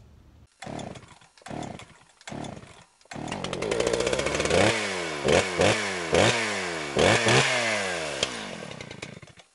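Small engine sputtering three times in short bursts, then catching about three seconds in and being revved repeatedly, the pitch falling away after each blip, before it fades out near the end.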